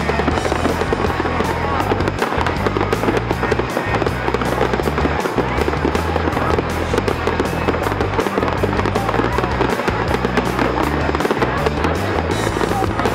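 Fireworks popping and crackling in rapid, continuous succession, mixed with music playing throughout.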